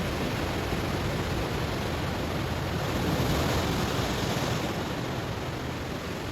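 Ocean waves breaking on a stony shore, a steady rushing surf. A wave builds and surges to its loudest about three seconds in, then draws back.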